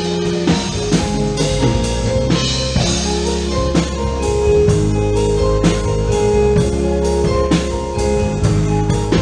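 Live band playing an instrumental passage with no singing: a drum kit keeps a steady beat of about two hits a second under held bass and chord notes.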